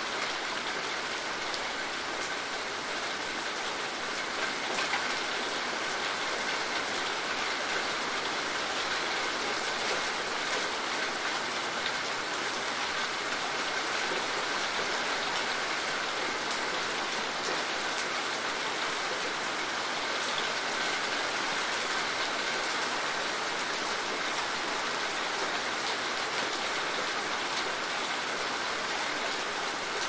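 Moderate rain falling steadily: an even hiss with faint drop ticks here and there.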